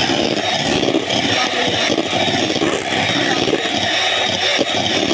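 Electric hand mixer running steadily, its beaters whipping cream in a stainless steel bowl.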